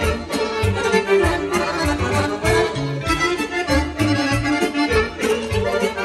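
Live folk band music led by chromatic button accordions playing a busy melody over electronic keyboard and a drum kit keeping a steady beat.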